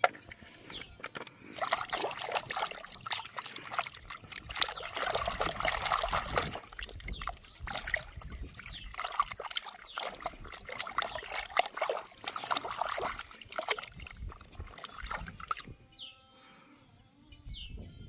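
Water splashing and trickling in uneven spurts, with many small clicks and knocks, as toy cars are washed. It goes quieter near the end, where a few short falling chirps sound.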